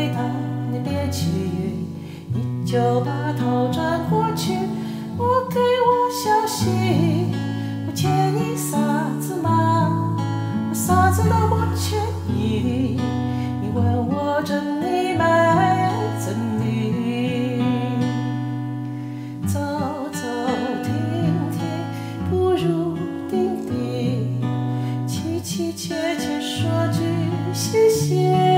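A Chinese ballad sung over acoustic guitar accompaniment.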